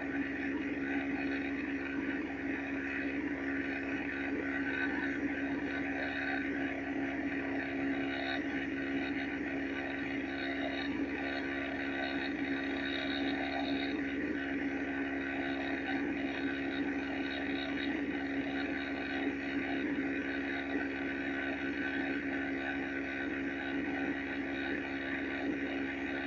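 Steady droning background noise with a constant hum, unchanging throughout.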